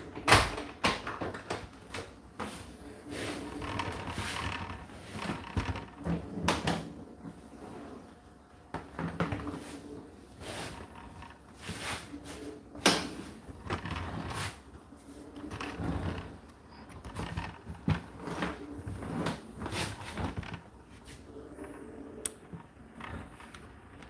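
Indesit IDC8T3 condenser tumble dryer running, with a faint steady motor hum. Clothes tumbling in the rotating drum give knocks and thuds every second or two, with two sharper knocks, one just after the start and one about 13 seconds in.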